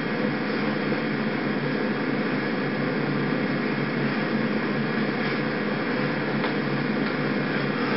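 Steady background hiss with a low hum underneath, even in level throughout, with no distinct events.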